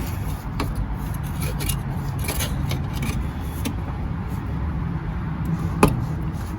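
Hammer tapping a flathead screwdriver driven into an over-tightened spin-on oil filter to break it loose: a few scattered metallic knocks, the sharpest about six seconds in, over a steady low rumble.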